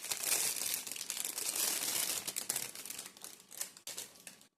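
Plastic packaging crinkling and rustling as it is handled, a dense crackle that stops suddenly near the end.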